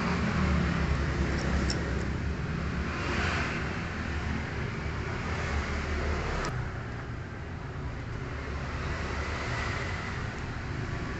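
Honda Karisma motorcycle's 125 cc single-cylinder four-stroke engine running steadily on the bench during tuning, with a single sharp click about six and a half seconds in.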